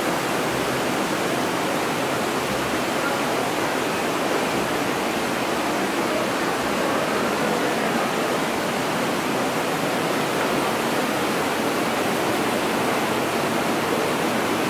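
A waterfall rushing, a steady, unbroken wash of falling water.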